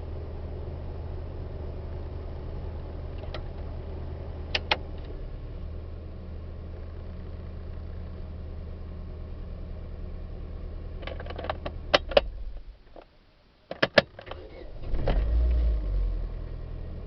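Chevrolet Vivant's engine idling steadily with a few sharp clicks, then switched off about twelve and a half seconds in. After a second of quiet and more clicks, it is cranked and fires after a short crank, running briefly louder before settling back to idle near the end.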